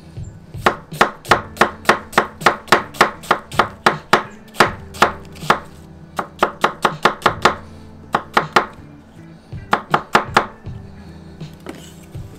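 A chef's knife slicing onions on a wooden cutting board: quick, even knocks of the blade through the onion onto the wood, about four a second, in several runs with short pauses between them.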